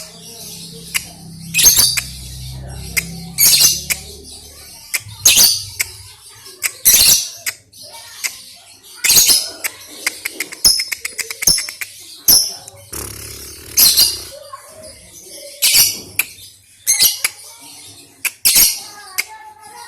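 Lovebird calling in sharp, loud, high-pitched chirps that come every second or two, with a fast run of clicking chatter a little past the middle: a young lovebird practising the erratic 'konslet' chattering call.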